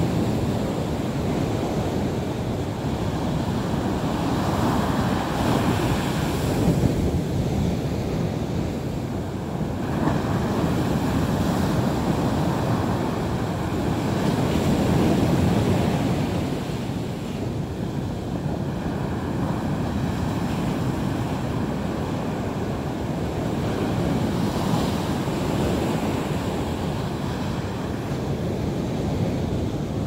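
Sea waves breaking on the shore. The surf is continuous and swells and eases every several seconds as each wave comes in.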